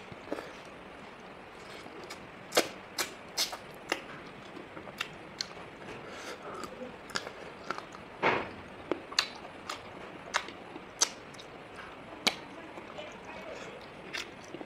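Close-up eating sounds of someone chewing chicken wings: an irregular string of sharp mouth clicks and smacks, with one fuller smack about eight seconds in.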